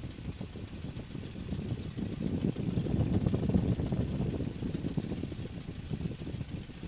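De Havilland Tiger Moth's four-cylinder inverted inline engine and propeller running at low taxiing power with a fast, even pulse. It grows louder about halfway through, then eases back.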